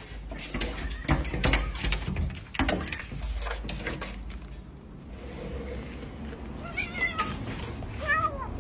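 A run of knocks and clatter in the first half, then a kitten meows twice: a short wavering call about seven seconds in and another near the end.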